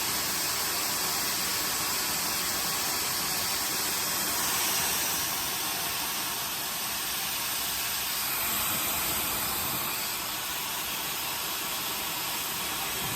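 Techmeri high-speed ionic hair dryer running steadily, a rush of air with a faint high-pitched whine.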